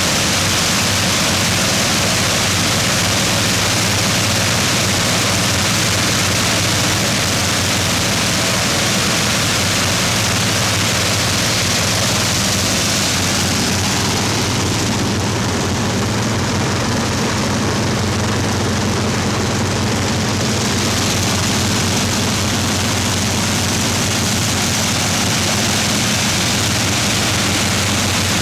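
Large propeller-driven piston aircraft engines running on trailer test stands: a steady deep engine drone under dense rushing air from the spinning propeller. The hiss dulls for several seconds in the middle.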